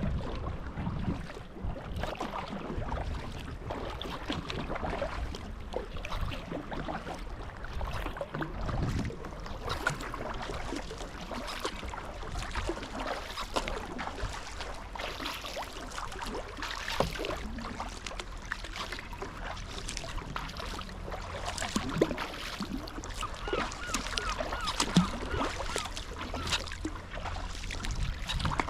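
Sea kayak being paddled: a steady run of small paddle splashes and water slapping and trickling along the hull.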